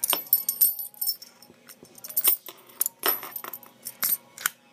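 Keys jangling and sharp metal clicks and clinks from handling a solid steel puck lock and its SFIC cylinder, coming in several short clusters with brief pauses between.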